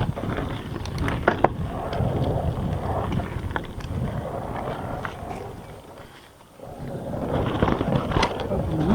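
Mountain bike running fast down a dry, loose dirt trail: tyres on the ground with rattling and clattering from the bike, and a couple of sharp clacks about a second and a half in. The noise briefly fades about six seconds in, then picks up again.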